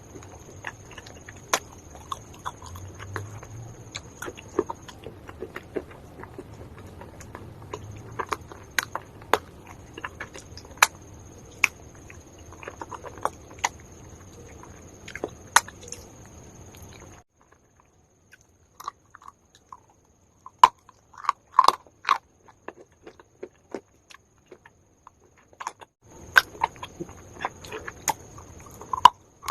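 Close-up biting and chewing of crunchy calabash chalk (uko, baked edible clay): sharp, irregular crunches and snaps, a few a second, close to the microphone.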